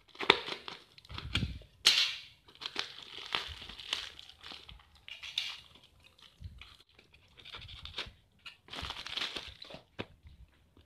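A plastic courier bag being cut and torn open and a plastic-wrapped package pulled out and handled: irregular crinkling, rustling and tearing of plastic, with a few sharp clicks.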